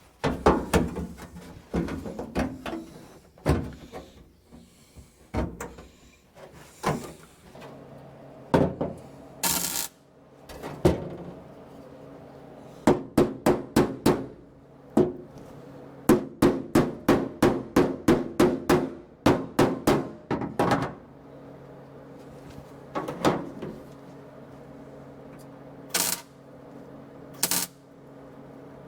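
Hammer blows on the steel sheet-metal radius of a replacement transmission tunnel panel, shaping it up to close a fit gap. The blows come in uneven runs of quick strikes with pauses between. A steady low hum sits underneath from about seven seconds in.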